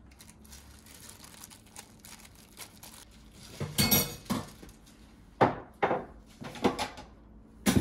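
A metal spoon and kitchenware knocking and clinking against a stainless steel mixing bowl. It is faint at first, then a cluster of knocks comes about four seconds in and a few more follow near the end.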